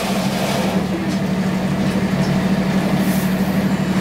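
Steady low drone of a tour boat's engine, heard on board.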